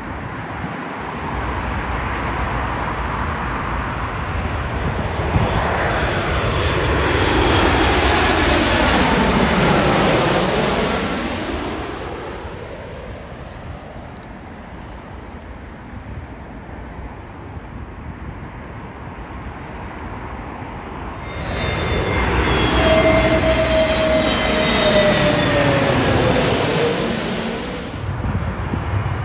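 Jet airliners on final approach passing low overhead, one after another. The engine noise swells and fades twice, with a whine that falls in pitch as each plane goes by.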